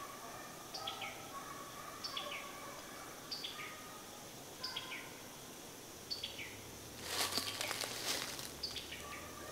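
A bird calls again and again in the woods, one short note that starts high and drops, about once a second, over a faint steady chirring background. About seven seconds in comes a brief louder rustle, the loudest sound here.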